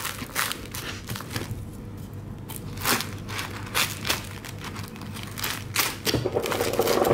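Kitchen knife sawing through crusty air-fried bread topped with melted cheese: a run of crisp crunches and crackles as the toasted crust breaks under the blade.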